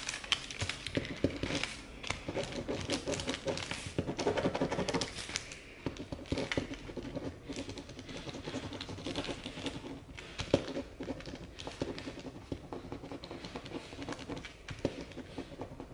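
Pen writing on paper: a run of small irregular scratches and taps as a note is jotted down.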